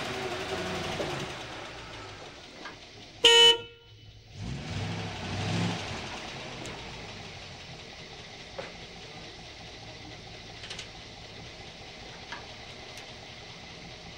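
A bus engine running as it pulls in, then a single short, loud honk of its horn about three seconds in. After the honk the engine rumbles briefly and fades to a low steady background.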